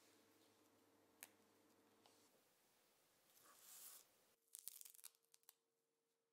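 Faint rustling and tearing of fresh tarragon leaves being stripped from their stems, then a short flurry of soft crackles as a bunch of curly parsley is handled and set down on the pile.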